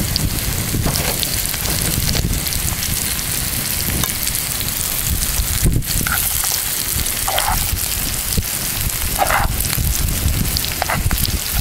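Sliced champignons, potato wedges and onion frying in plenty of oil in a pan over an open fire, a steady sizzle, with some stirring in the pan. Wind rumbles on the microphone.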